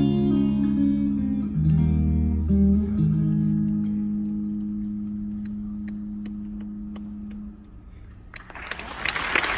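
Solo guitar playing chords; a final chord about three seconds in is left to ring and slowly fade away. Near the end, applause breaks out.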